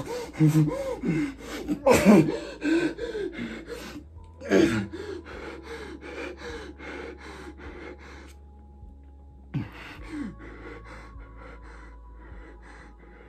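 A man gasping and groaning in pain, with ragged heavy breathing. The loudest gasps come about half a second, two seconds and four and a half seconds in, and one more sharp one near ten seconds, growing weaker toward the end. These are an actor's performed gasps as a mortally wounded, bleeding soldier.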